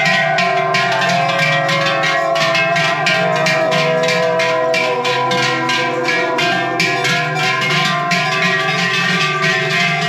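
Large cowbells worn by a herd of walking cows, clanging in a steady rhythm of about four to five strikes a second. Their tones overlap into a sustained ringing chord.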